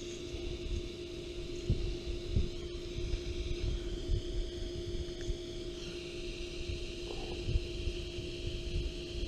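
A steady low hum with a fainter high hiss above it, broken by irregular low thumps.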